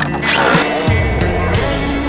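Background music; a heavy bass line comes in about a second in.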